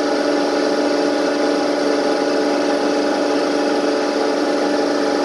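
LA155F30 CNC lathe running steadily, a machine hum of several held steady tones with no break.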